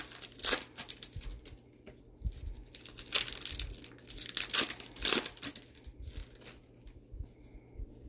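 Foil wrappers of baseball card packs crinkling and tearing as they are handled and opened, in a series of short rustles that are loudest in the first five seconds or so and thin out near the end.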